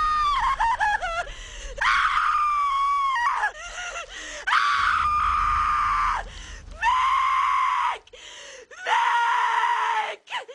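Voices screaming in terror: about five long, high-pitched screams in a row, each held for one to two seconds before dropping off, with short breaks between them.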